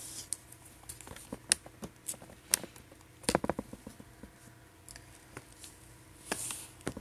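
Scattered light clicks and taps of small objects being handled at a makeup table, with a quick cluster of knocks about three seconds in and a short rustle near the end.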